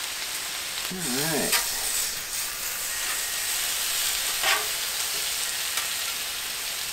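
Sliced deer heart sizzling on a hot flat-top griddle, a steady hiss of frying. A metal spatula scrapes and clicks on the griddle a few times as the meat is lifted off.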